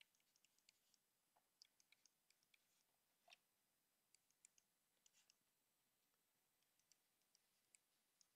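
Near silence with faint, irregular clicks and taps of a stylus writing on a tablet screen, coming in small clusters, the most distinct one about three seconds in.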